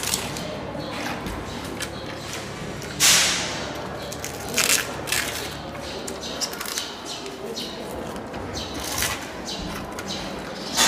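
Giant panda biting and chewing a bamboo shoot, with crisp cracking crunches, the loudest about three seconds in and others near five and nine seconds.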